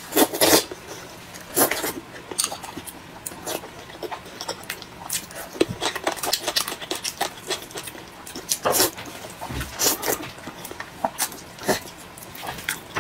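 Close-up eating sounds: a person slurping hot dry noodles and chewing with wet mouth noises. There are loud slurps just after the start and again about nine seconds in, with smaller smacks and chews between.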